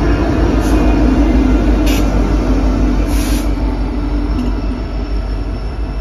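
BNSF freight train led by EMD SD70ACe locomotives passing close by: a loud, steady rumble of engines and wheels on rail, with a few brief high-pitched bursts, the longest about three seconds in. It grows a little quieter near the end.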